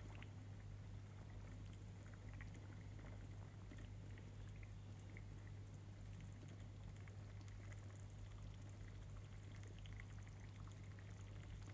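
Faint small pops and crackles of bean stew cooking in a pot, over a steady low hum.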